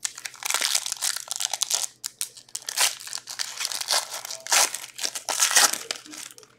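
Crinkling and crunching of an Upper Deck SP Authentic hockey card pack wrapper as it is handled and opened, in a run of short crackly bursts.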